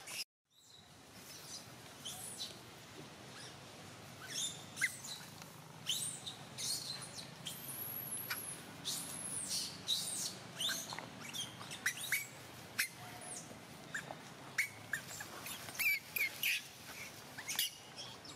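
Many short, high-pitched animal chirps, squeaks and whistles, irregular and scattered, some sweeping up and down in pitch, over a faint steady low hum; a brief silent gap right at the start.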